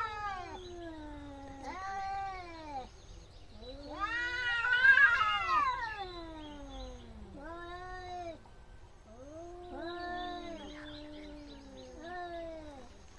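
Cats caterwauling at each other in a fight standoff: drawn-out yowls that rise and fall in pitch. The longest and loudest wail comes about four seconds in, followed by several shorter, overlapping yowls.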